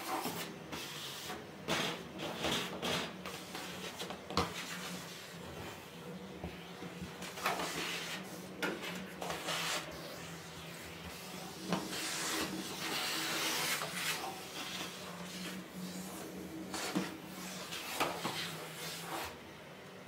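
Vacuum cleaner running with a steady hum while its hose nozzle rubs and scrapes along the floor and the rug edge. The suction hiss swells and fades as the nozzle moves, with scattered knocks, and the sound cuts off suddenly at the end.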